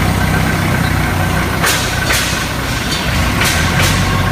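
Heli 2.5-tonne forklift's engine running steadily with a low hum, with a few short clicks between about one and a half and four seconds in.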